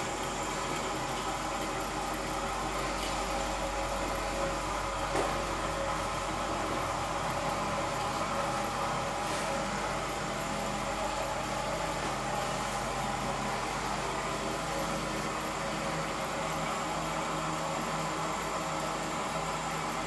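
Stirling engine running steadily with a constant mechanical hum, a faint click about five seconds in.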